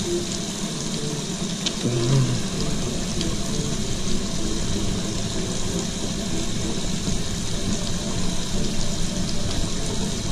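Kitchen tap running steadily into a stainless steel sink, with soapy hands being rubbed and splashed under the stream during hand washing.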